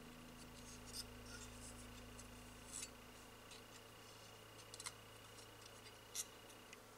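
Near silence with a few faint, separate clicks and ticks, about four, from fingers handling and turning a small model built from thin sheet steel.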